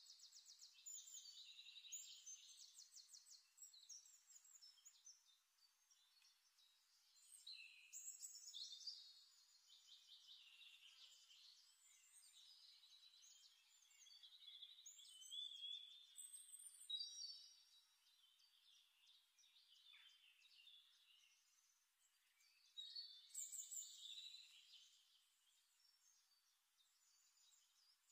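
Faint birdsong: bursts of quick, high chirps and trills that return every several seconds.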